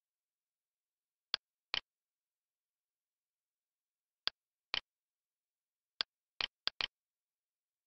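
Computer mouse button clicking: sharp clicks in press-and-release pairs about half a second apart, three pairs spaced a couple of seconds apart, then a quicker run of clicks near the end.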